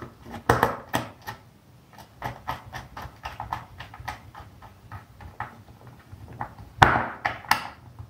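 Irregular small clicks and scrapes of a screwdriver and wire being worked into a screw terminal on a contactor, with louder knocks about half a second in and again near the end.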